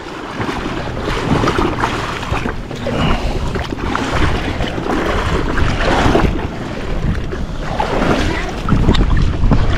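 Wind buffeting the microphone over the rush of ocean water and surf, swelling and easing every few seconds.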